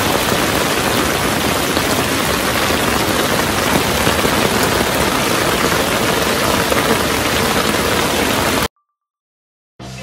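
Heavy rain falling steadily, cutting off abruptly about nine seconds in.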